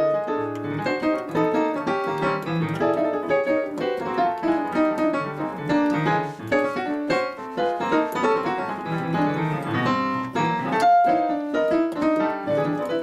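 Piano played as an atonal jazz vamp: dense tone clusters struck in quick, uneven succession, many notes sounding at once.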